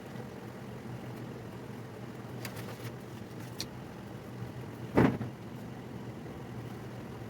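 Steady low hum and hiss of background noise, with a few faint clicks and a single dull thump about five seconds in.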